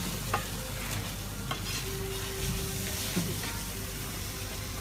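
Food sizzling in a frying pan as a metal ladle stirs it, with a few light clicks of the ladle against the pan.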